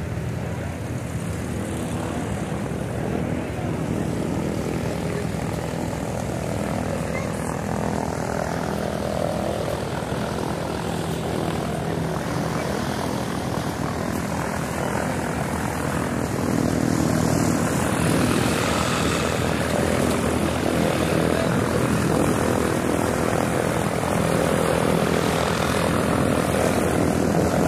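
Propeller aircraft engine running steadily, getting louder about sixteen seconds in.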